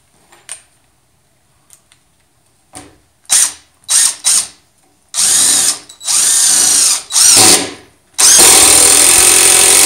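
DeWalt cordless impact driver driving a three-inch screw into a wooden 4x4: a few short trigger bursts to start the screw, then longer runs, the last and longest nearly two seconds.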